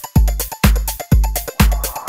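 Background music with a steady kick-drum beat, about two beats a second, and ticking cymbals between the beats.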